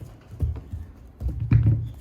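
Doberman puppy gagging with two low, throaty heaves, a short one and then a longer, louder one about a second later. It is a retching sound that the owner thinks may come from something odd the puppy swallowed, perhaps a stone.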